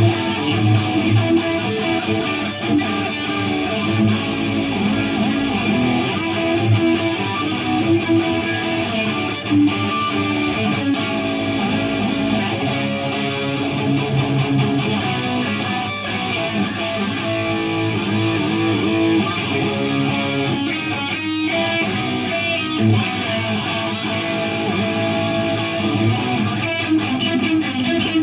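LTD ST-203FR electric guitar played through a Marshall DSL100H amp head on distortion: continuous picked riffs and lead lines without a break.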